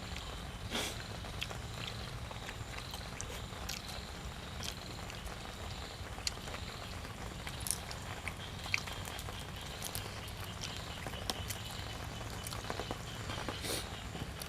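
Close-up eating sounds: chewing and mouth smacks, with scattered short clicks, over a steady low background hum.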